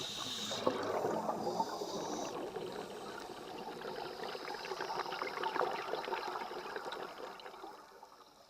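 Water bubbling and gurgling with a crackly fizz, swelling and easing, then fading near the end.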